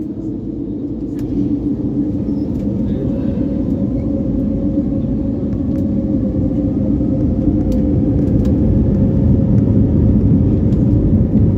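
Airbus A321neo's Pratt & Whitney geared turbofan engines and wheels heard from inside the cabin as the jet rolls on the ground: a steady low rumble with an engine hum, a few light knocks, growing gradually louder.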